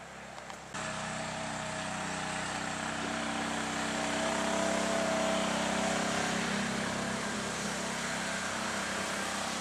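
An engine running steadily, cutting in abruptly just under a second in and getting a little louder in the middle.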